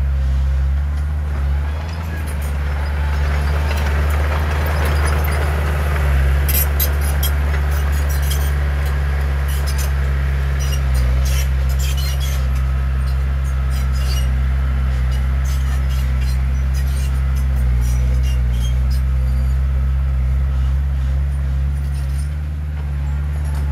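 Heavy diesel engine of earth-moving machinery running steadily under load, with a rush of noise between about three and six seconds in and scattered sharp clanks.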